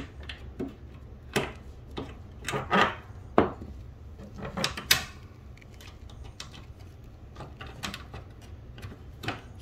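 Metal crib bolts being fitted and turned by hand with a small tool in a wooden crib frame: irregular clicks, knocks and short scrapes of metal on wood, the loudest knocks a few seconds in.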